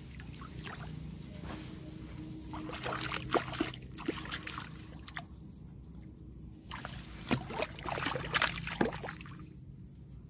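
Splashing and sloshing in shallow water as a hooked fish is handled and lifted out by hand, in two short bursts of sharp splashes.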